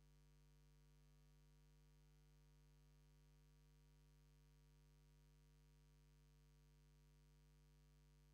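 Near silence, with only a faint, steady electrical mains hum.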